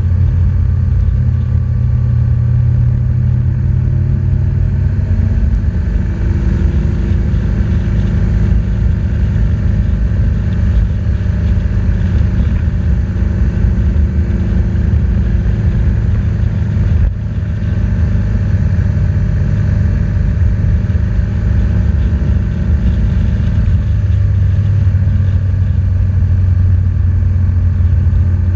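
BMW R1200GS boxer-twin engine running steadily under way, heard from a camera mounted on the bike, with a heavy low rumble. The level dips briefly a little past the middle.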